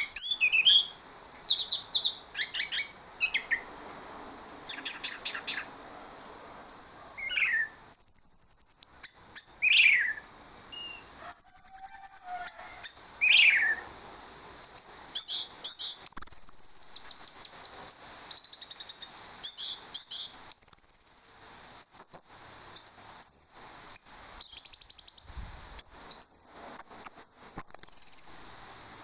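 Orange-headed thrush singing loudly in full voice, its song packed with mimicked phrases. It runs as quick high chirps, rapid trills and whistles, with a few falling notes. The phrases have short pauses between them in the first half and run almost without break in the second half.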